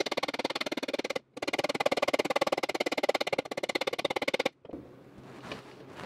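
Small hammer tapping out a dent in a metal Rostyle wheel cover: a fast, even run of light metallic taps with a short break about a second in, stopping suddenly past the middle.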